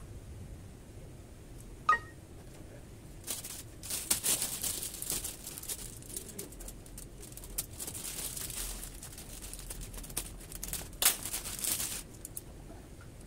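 Plastic packaging on clothing multipacks crinkling and rustling as the packs are handled and set down, in irregular bursts from a few seconds in until near the end. A single sharp click comes about two seconds in.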